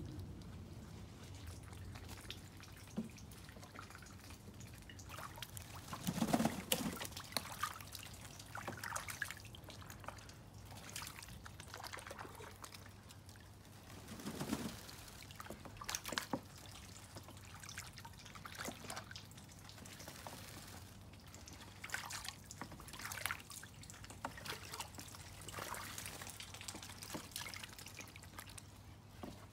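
Water dripping and trickling irregularly, with many small drops and splashes and a couple of louder ones about six and fourteen seconds in.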